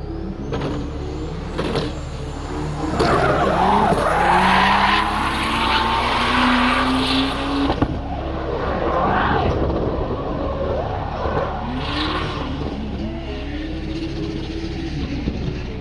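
Drift car with a turbocharged V12 engine sliding on track: the engine revs up and down while the tyres squeal and scrub, loudest in the first half.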